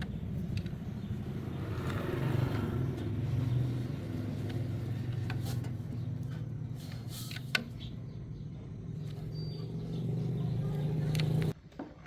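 A motor running with a low, steady hum that shifts in pitch, then cuts off suddenly near the end.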